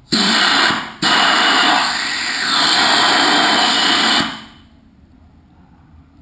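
Compressed air from an air compressor line hissing out in two blasts: a short one, then, after a brief break, a longer one of about three seconds that tails off.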